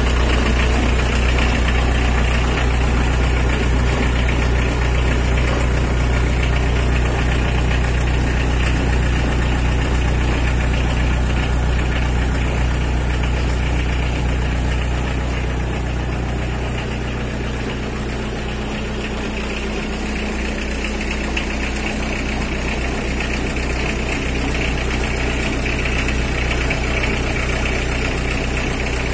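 Mitsubishi L300 pickup's engine and rear drivetrain running in third gear with the rear wheels jacked off the ground and spinning: a steady low hum and rumble from the propeller shaft, differential and rear wheel bearings. It is being checked for the rumble of a worn rear wheel bearing or a worn differential bearing. It grows a little quieter for a few seconds midway, then picks up again.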